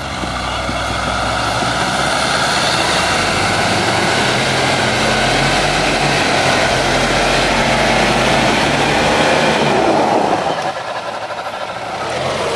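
Pickup truck engine revving hard under load while its tyres spin and churn through deep snow, with a loud rushing hiss of thrown snow. It builds over the first couple of seconds and eases off about ten seconds in.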